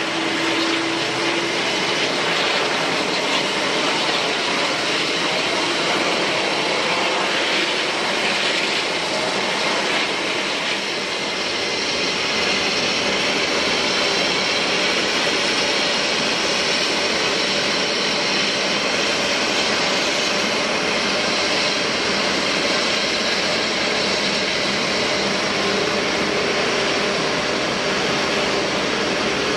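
Jet airliner engines running: a steady, even rush of engine noise, with faint high whining tones joining about halfway through.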